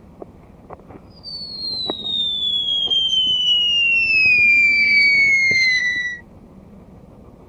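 A loud whistling tone gliding steadily down in pitch for about five seconds, then cutting off suddenly, with a few faint clicks before it.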